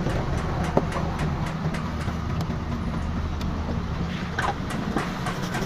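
Steady low mechanical rumble with small clicks and taps scattered through it.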